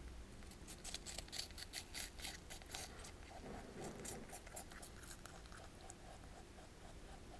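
Lop-eared rabbit chewing food in quick crunching bites, loudest in the first three seconds, then softer chewing that fades out.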